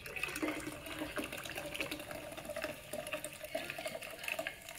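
Water poured from an aluminium can into a stainless steel cocktail shaker in a steady stream, stopping near the end.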